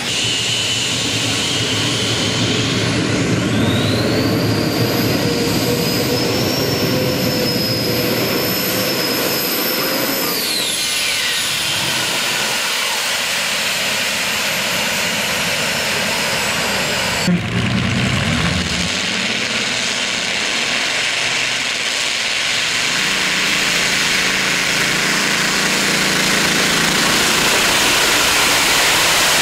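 Modified pulling tractor engines running at full power while hauling a weight-transfer sled. A high whine rises about three seconds in, holds, and falls away around eleven seconds. After a sudden cut, another tractor's engines run under heavy load.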